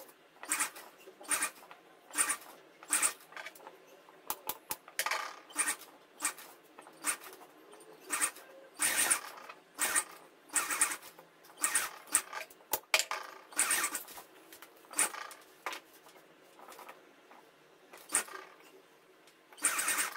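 Sewing machine stitching lace trim onto fabric in short, irregular spurts, about one or two a second.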